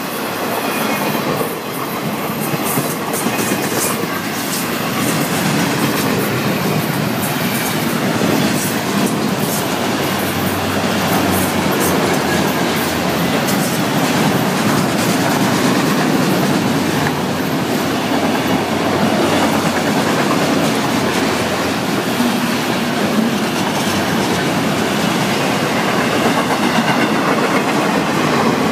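Florida East Coast Railway freight train rolling past close by, first intermodal container cars and then autorack cars. Its steel wheels clack over the rail joints above a steady rumble, with a faint wheel squeal at times.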